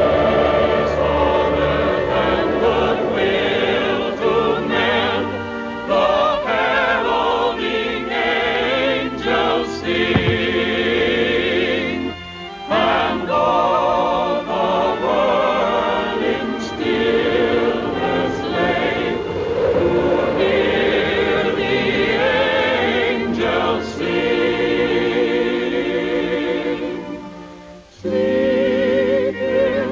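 Music: a choir singing in an operatic style with orchestral accompaniment, the voices wavering with vibrato. The music briefly drops away twice, about 12 seconds in and near the end.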